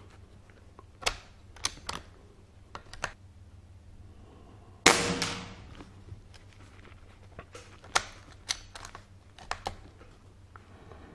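A single shot from a BSA Scorpion SE .22 pre-charged pneumatic air rifle about five seconds in, a sharp crack with a short tail. Lighter mechanical clicks before and after it come from the rifle being handled and its bolt cycled to reload.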